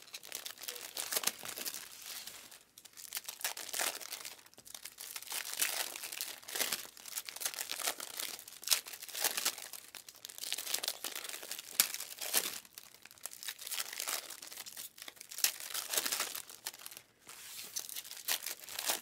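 Foil wrappers of Bowman Chrome trading-card packs crinkling and tearing as packs are ripped open one after another, in irregular bursts with brief pauses.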